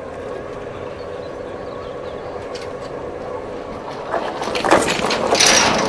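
Steady mechanical hum, then a much louder rushing, rattling run of noise that builds about four seconds in and peaks near the end.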